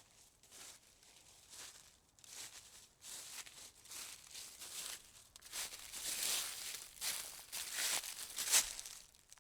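Irregular rustling, crinkling noise, a run of swishes that grows louder over several seconds and cuts off suddenly at the end.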